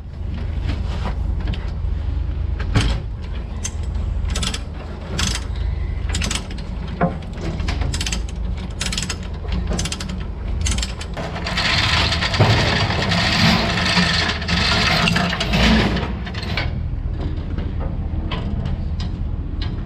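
Manitou skid steer running hard while working snow, its engine a steady low rumble under repeated metallic clanks and knocks. A louder, harsher stretch of noise comes about halfway through and lasts a few seconds.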